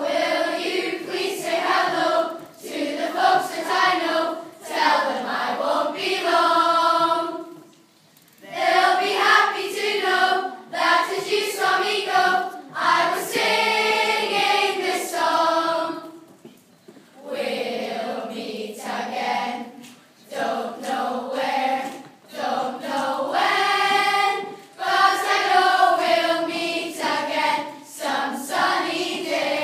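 A children's choir singing together, phrase after phrase, with short pauses for breath between the lines.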